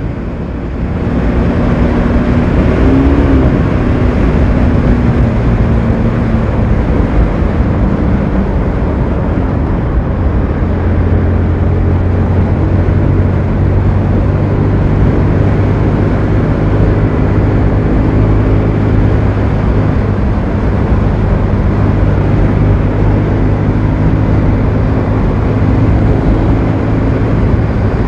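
Bajaj Pulsar NS motorcycle's single-cylinder engine running under way at a steady cruise, mixed with road and wind noise. Its pitch shifts a few times in the first ten seconds, then holds steady.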